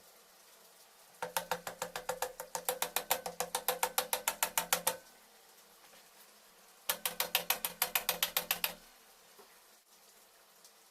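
Rapid, evenly spaced mechanical clicking with a steady low tone under it, in two runs: one of about four seconds starting a second in, and a shorter one of about two seconds.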